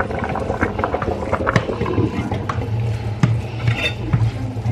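Kitchen cooking sounds: a pot of spaghetti water steaming on the stove, with scattered clinks and knocks of utensils against pots over a steady low hum.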